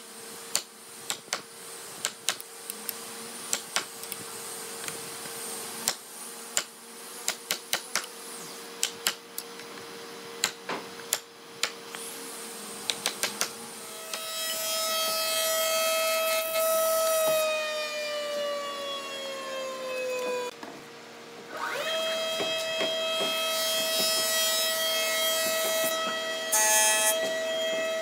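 Sharp, irregular taps of a steel chisel cutting a joint in hardwood, over a steady workshop hum. About halfway a jointer-planer's motor starts up with the hiss of a board being planed. It winds down, falling in pitch, and stops, then starts again and runs steadily with more planing.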